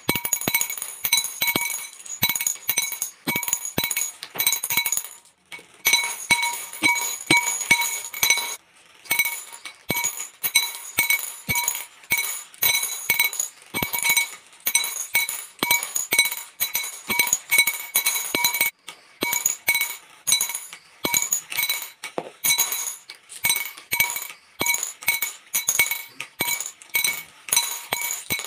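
Glass marbles dropping one after another off plastic channels into glass bowls: quick sharp clinks against the glass and the marbles already inside, each leaving the bowl ringing briefly, several a second with a few short pauses.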